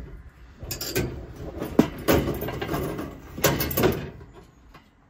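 The metal gas heat-exchanger and burner unit of a Truma caravan heater being worked loose and lifted out of its casing: irregular metal scraping and knocking, with a sharp clack a little under two seconds in, dying away near the end.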